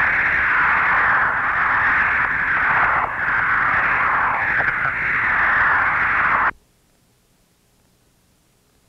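Loud radio static: a steady hiss of a NASA mission radio channel that cuts off abruptly about six and a half seconds in, leaving near silence.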